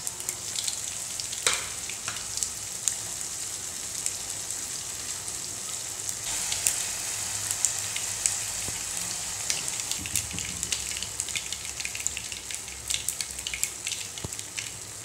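Cumin and mustard seeds sizzling in hot oil for a dal tempering (tadka): a steady hiss with frequent small pops and crackles as the seeds splutter.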